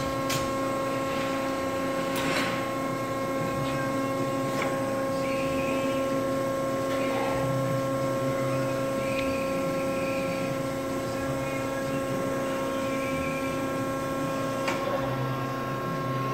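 Pines NC-2 CNC tube bender's hydraulic unit idling with a steady hum, with a couple of light clicks.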